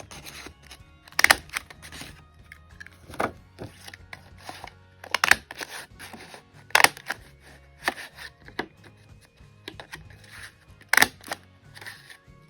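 Handheld craft paper punch (scalloped-edge square) clacking as it punches through patterned paper, about five sharp clacks with smaller handling clicks between them, over faint background music.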